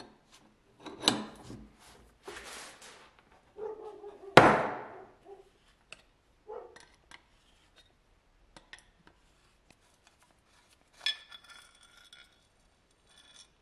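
Metal-on-metal clanks and clinks of a steel adjustable wrench against the air pistol's cylinder and end cap, with one loud clank about four seconds in. Near the end comes a short ringing metallic scrape as the parts are handled and the piston is drawn out of the cylinder.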